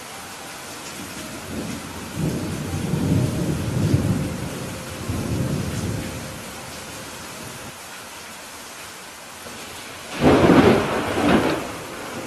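Steady rain with thunder: a low rumble swells and fades over the first few seconds, then a sharper, louder thunderclap comes about ten seconds in.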